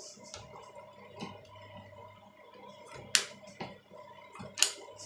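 Thin plastic protective film being peeled off and handled: a few sharp crackles and clicks, the loudest about three seconds in and another about a second and a half later, over a faint steady whine.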